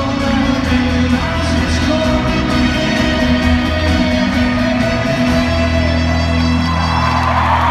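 Live folk-rock band playing loudly in an arena, heard from the crowd, with sustained guitar and vocal notes over a heavy bass. Crowd cheering swells near the end.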